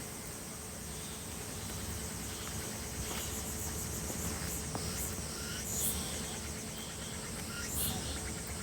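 Insects trilling in a steady, high, finely pulsing drone over a low background rumble, with a few short high chirps about six and eight seconds in.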